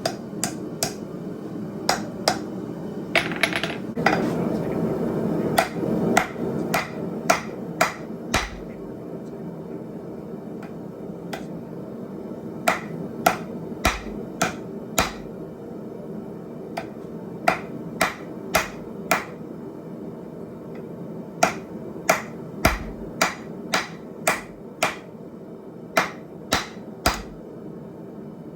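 Blacksmith's hammer striking hot steel on an anvil, in runs of sharp single blows about two a second, broken by pauses of a few seconds. A steady low rush runs underneath.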